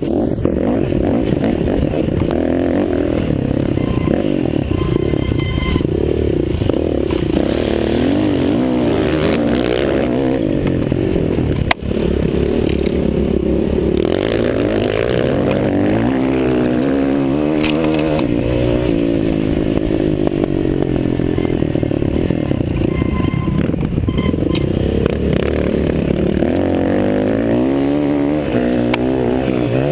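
Several motocross bikes racing, their engines revving up and down over one another as they accelerate and shift. There is one sharp click about twelve seconds in.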